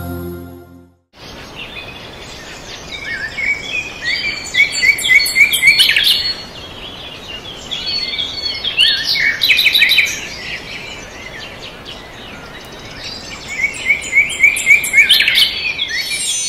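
Several birds chirping and singing in quick repeated notes, in three bouts, over a steady background hiss. It starts about a second in.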